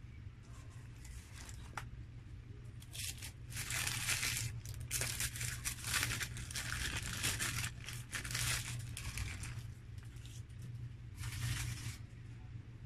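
Paper burger wrapper crinkling and tearing as a McDonald's burger is unwrapped, in irregular rustling bursts from about three seconds in to about nine seconds, and again briefly near the end.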